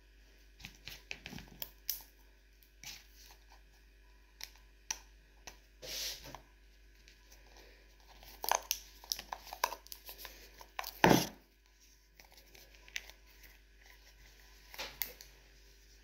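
Packaging being torn and crinkled by hand while being opened: scattered crackles and rips, with a longer rip about six seconds in and a louder sharp one about eleven seconds in.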